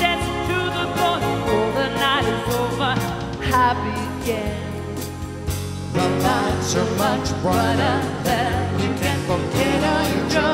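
Live band playing a song: a melody line with vibrato over a walking bass and drums with cymbal hits.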